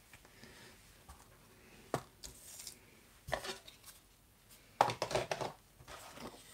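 Craft supplies being handled while a worktable is tidied: a sharp knock about two seconds in, another about a second later, then a quick run of knocks and paper rustling near the end.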